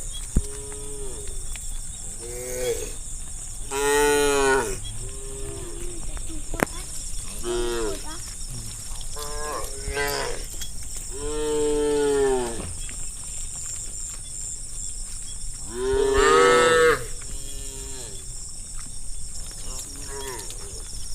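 Herd of cattle mooing, several cows calling one after another at different pitches, about ten moos in all, some overlapping. The loudest come about four, twelve and sixteen seconds in, over a steady high hiss.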